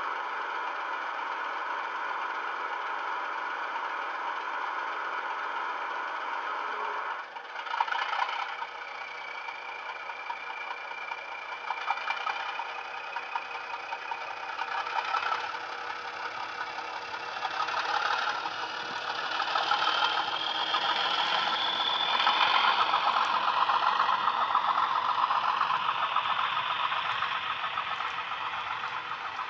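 Class 37 diesel sound from a Soundtraxx Econami DCC sound decoder, played through the small speaker of a Bachmann OO gauge model locomotive. The engine idles at first, changes about seven seconds in as the model pulls away, then builds up louder, with a rising whistle over the engine about two-thirds of the way through.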